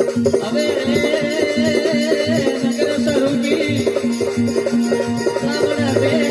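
Instrumental passage of a Rajasthani folk bhajan: a wavering melody line over steady repeated low notes, with drum strokes and jingling rattle-like percussion keeping the beat.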